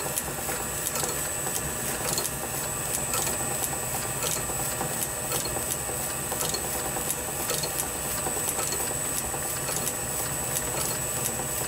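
Small metal-working lathe running unloaded, a steady motor hum with a thin high whine and a light regular ticking a few times a second.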